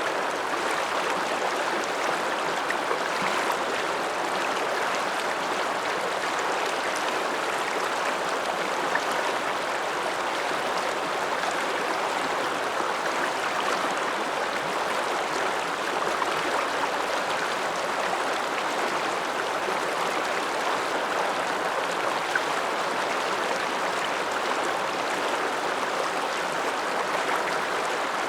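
The Ramsauer Ache, an Alpine mountain river, flowing with a steady, even rush of water.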